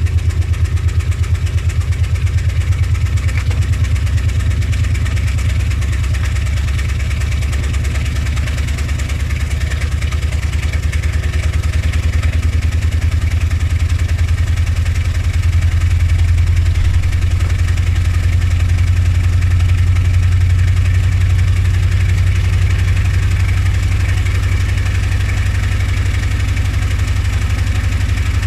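Front-loading washing machine spinning an unbalanced load, giving a loud, steady low rumble with a fast, even pulsing. It swells a little past the middle.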